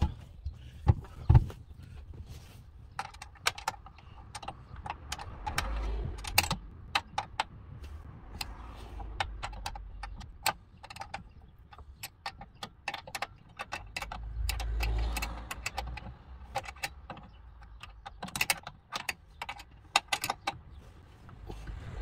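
Metal hand tool clinking and tapping against a van seat's steel runners and base as the seat is being unbolted. Irregular sharp clicks run throughout, with a couple of louder knocks about a second in and a few dull bumps.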